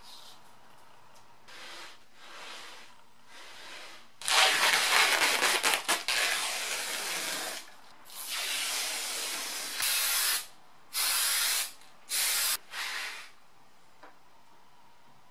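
A series of hissing bursts with no pitch and sharp starts and stops. Two long ones of about two to three seconds come first, then four short bursts of under a second each.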